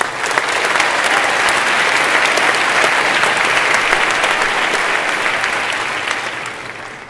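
Large audience applauding, starting at once, holding steady and dying away near the end.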